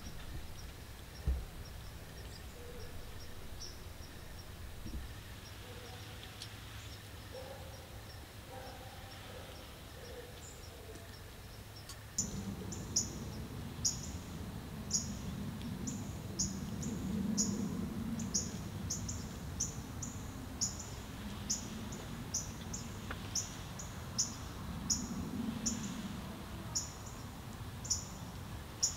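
Outdoor evening ambience at a field edge: a steady series of short, high chirps repeating about once or twice a second, faint at first and louder after a cut about twelve seconds in, over a low background rumble.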